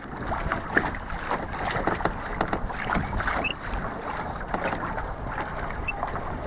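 Water splashing and lapping against the hull of a small sailing dinghy, with wind rumbling on the microphone.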